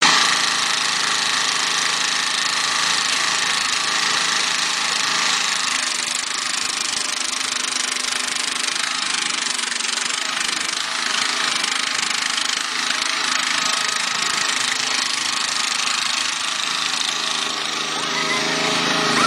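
Small 18 hp Briggs & Stratton engine of a homemade hydraulic-drive tractor running steadily under load while the machine drives and works its front loader.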